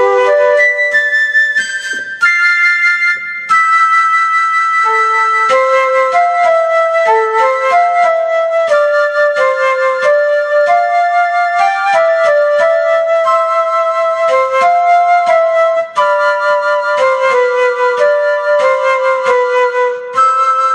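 Yamaha DGX-660 digital piano sounding its Sweet Flute voice: a melody of held, flute-like notes in the upper register, played continuously on the keys.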